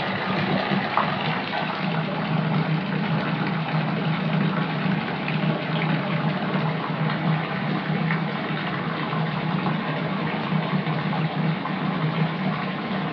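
Water pouring steadily into a filling bathtub: a continuous rushing splash with a deep, even rumble underneath.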